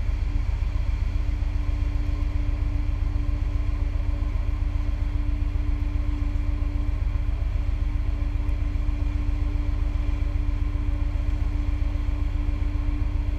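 A boat engine running steadily: a low rumble with a constant hum, unchanging throughout.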